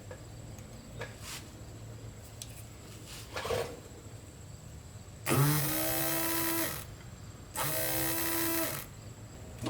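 Porsche 944 Turbo electric fuel pump, run directly off a 12-volt battery, whirring with a steady high buzz twice, about a second and a half each time, after a couple of faint clicks. It runs when jumped, so the pump itself works and the no-start points to its wiring or a blown fuse.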